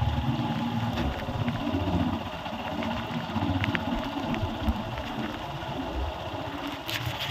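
Motorcycle engine running as the bike is ridden slowly over a wet, muddy dirt road, a steady low rumble mixed with tyre and road noise and a few faint clicks.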